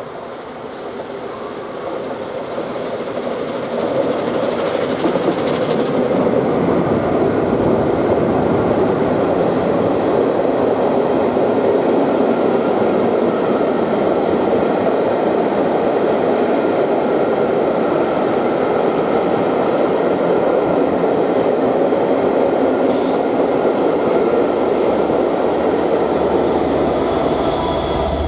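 Steam locomotive 60163 Tornado, a Peppercorn A1 Pacific, passing at speed with a train of Pullman coaches. The sound grows louder over the first few seconds as the engine comes up and goes by, then settles into a long, steady rumble of coach wheels on the rails, with a few brief high squeals.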